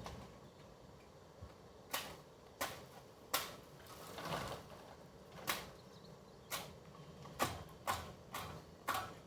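A string of about ten sharp, irregularly spaced snaps and clicks, one of them a little longer and rougher.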